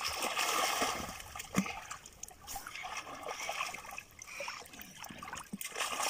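Water splashing and sloshing as a small child plays and ducks head-first in shallow lake water, the splashes coming and going unevenly.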